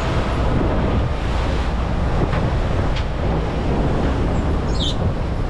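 Wind buffeting the microphone over the rush of ocean waves and surf, a steady, loud rumble and hiss. A brief high chirp sounds near the end.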